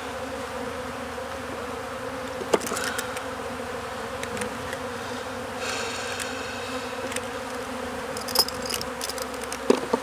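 Honey bees buzzing in a steady drone around an opened hive. A metal hive tool knocks sharply against the wooden frames a few times, once a few seconds in and again near the end, with a brief scrape around the middle as it pries a frame loose.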